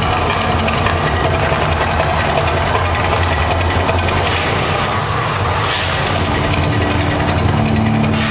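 Deep, steady rumble of the Mirage volcano show's sound effects, with a brighter hiss joining about halfway through.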